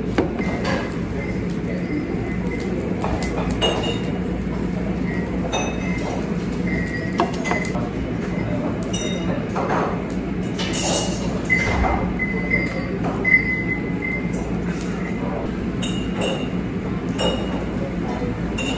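Dishes and glasses clinking now and then at a restaurant table during a yakiniku meal, over a steady hum and faint background voices.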